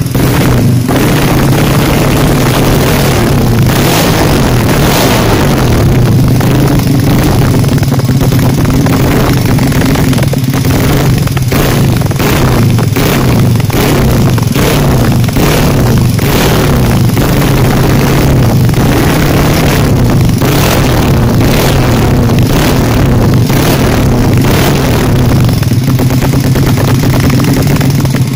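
Bore-up Yamaha Jupiter's four-stroke single-cylinder engine running loud and steady through a BRS aftermarket stainless-steel exhaust with an RCB-style silencer, with many short sharp pulses over the steady exhaust note.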